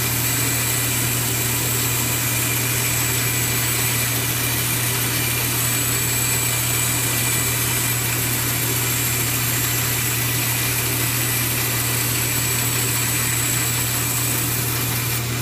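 Vertical bandsaw running steadily with a constant hum while its blade cuts through a book.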